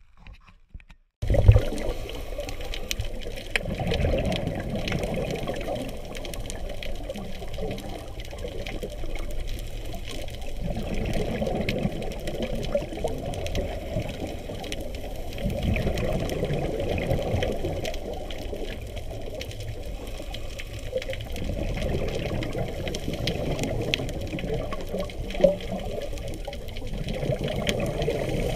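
Underwater sound on a reef dive: steady muffled water noise with a scuba diver's exhaled regulator bubbles surging about every five to six seconds, and faint crackling clicks. It starts abruptly about a second in.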